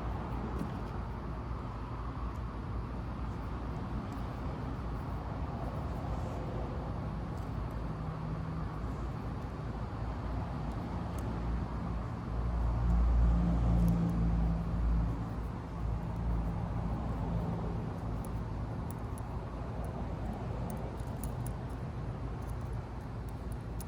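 Steady low hum and rumble, swelling louder for about three seconds near the middle, with faint light clicks from small parts being handled.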